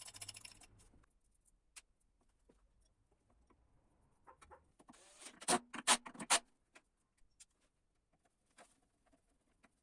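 A short hiss, then scattered light ticks and a cluster of four sharp clicks and knocks about five to six and a half seconds in, like small hard objects being handled and set down.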